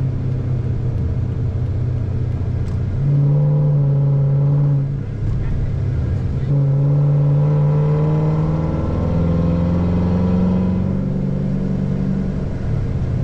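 Chrysler 300C's 5.7-litre HEMI V8 pulling hard under throttle, heard from inside the cabin. The engine note gets louder about three seconds in, dips briefly near the middle, then comes back strong with the pitch stepping up before easing off toward the end.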